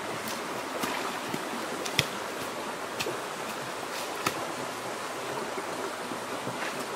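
Shallow stream water with hands splashing and scooping through water and mud, and a few sharp knocks, the loudest about two seconds in.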